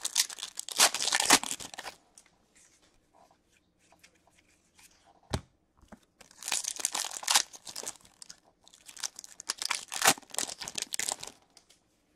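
Foil trading card pack wrappers being torn open and crinkled by hand, in three bouts of crackling, with a single sharp tap a little over five seconds in.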